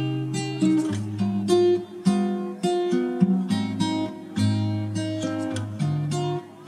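Background instrumental music: an acoustic guitar plucking a melody over low bass notes.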